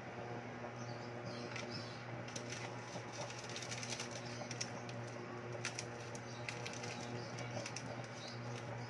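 A pot of broth boiling on an induction cooktop: many small, irregular bubbling pops and clicks, thicker from about two seconds in, over a steady low electrical hum.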